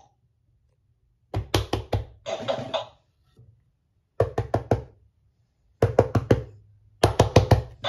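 Talking monkey plush toy playing a short electronic tune through its small built-in speaker: runs of four or five quick drum-like beats with short gaps between them.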